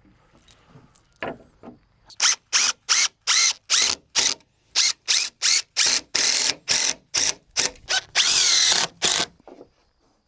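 Cordless drill driving screws into timber in about twenty short trigger bursts, with a longer run of about a second near the end.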